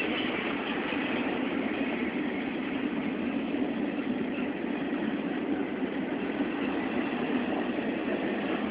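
Intermodal freight train of stack and trailer cars rolling past: a steady, even noise of steel wheels on the rails.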